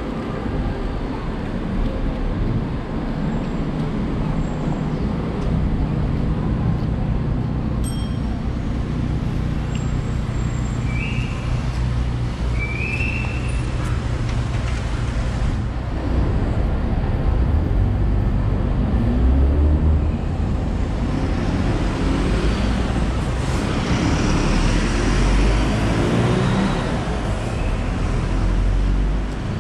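City street traffic: cars and a bus driving past with a steady road rumble, and an engine note rising as a vehicle accelerates in the second half.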